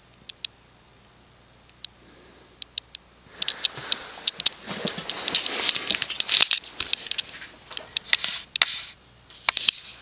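A few isolated clicks, then from about three seconds in a stretch of dense rustling and crackling with many sharp clicks, handling noise as the camera is moved in close to the fan and back.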